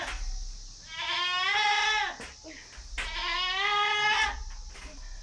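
A goat bleating twice, two long, loud calls about two seconds apart, each rising slightly and then falling off.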